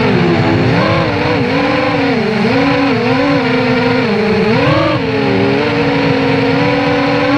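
FPV racing quadcopter's Novak Breeze brushless motors and propellers whining in flight, heard from the onboard camera; the pitch swings up and down every second or so as the throttle changes, with a deeper dip about five seconds in.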